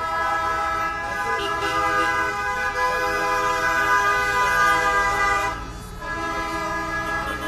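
Boat horns sounding in a long, steady blast that breaks off briefly about six seconds in and starts again.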